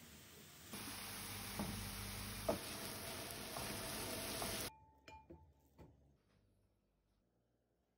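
Grated carrots sizzling in a hot pan while a wooden spoon stirs them, with a couple of sharp knocks of the spoon against the pan. The sizzle cuts off suddenly a little before five seconds in, leaving a few light clicks and then near quiet.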